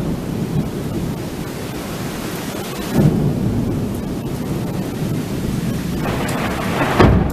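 Thunderstorm: a steady hiss of rain, with thunder rumbling up about three seconds in and a sharper, louder clap of thunder near the end.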